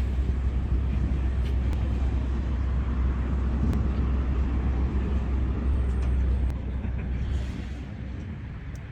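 Steady low rumble of a passenger ferry under way, easing about six and a half seconds in.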